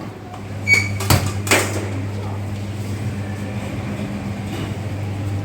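Steady low electric hum of restaurant kitchen equipment, with three sharp clinks and knocks in quick succession about a second in.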